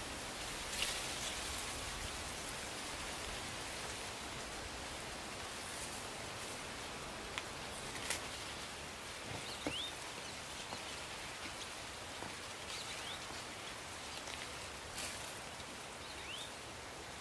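Steady outdoor hiss, with rustles and sharp crackles of dry grass and soil as they are pulled and scraped by hand, and a few short rising bird chirps.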